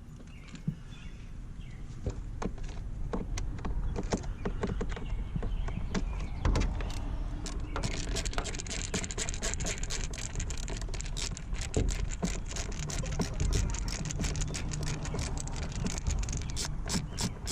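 Hand tools clicking, rattling and knocking against screws and the plastic trim under a car's dashboard while panel screws are undone, with low handling rumble. The clicks come thick and fast from about halfway in.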